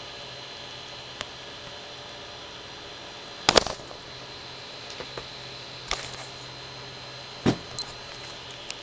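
Handling noise from a Casio G-Shock DW-9052 resin watch being moved about and set down: scattered clicks and knocks, the loudest cluster about three and a half seconds in and a heavier knock near seven and a half seconds. A very short high electronic beep, the watch's button beep, follows just after that knock.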